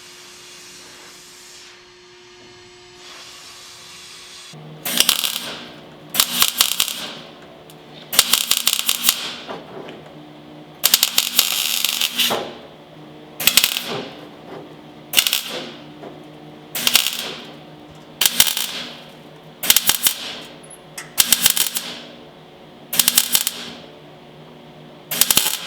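MIG welder laying a series of short stitch welds on sheet steel: about a dozen crackling bursts, each under a second, roughly every second and a half, starting about five seconds in over a steady hum.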